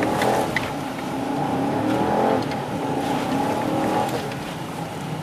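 A motor engine revving up and down repeatedly under load.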